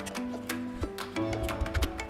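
Background music: held melodic notes over a steady ticking beat.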